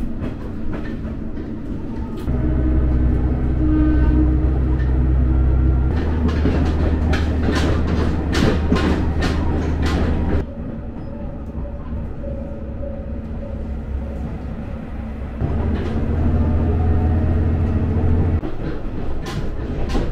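Inside a JR Kyushu KiHa 125-400 diesel railcar under way: the diesel engine's low drone comes up about 2 s in, and the wheels clack over rail joints from about 6 to 10 s. The engine eases off about 10 s in, comes back up near 15 s, and drops again near 18 s.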